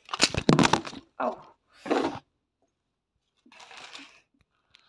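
Camera being bumped and handled: a quick run of knocks and clatter at the start, then a short rustle about three and a half seconds in.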